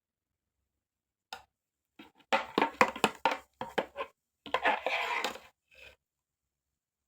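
Kitchenware being handled: a click, then a quick run of about eight sharp knocks, then a short scraping rustle.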